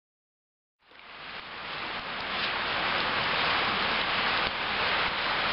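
Campfire burning with a steady hiss and faint crackles, fading in from silence about a second in.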